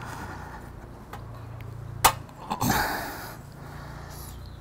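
Handling noise: a single sharp click about two seconds in, followed by a short rustle, over a steady low hum.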